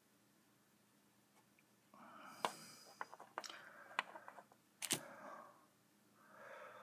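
Faint handling sounds of a chest piece being fitted onto a wooden articulated figure: soft rustling with a few sharp clicks, the loudest about five seconds in.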